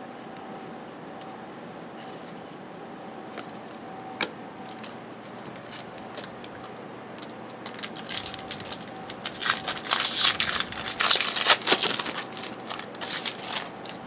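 A 2008 Upper Deck Heroes trading-card pack wrapper being torn open and crinkled. It makes a dense run of crackling from about eight seconds in for roughly five seconds, after a quiet stretch with a single click.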